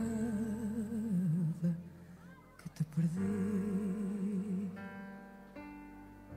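A woman's voice singing wordless long notes with a wide vibrato, in two phrases. Near the end a held instrumental chord takes over and slowly fades away.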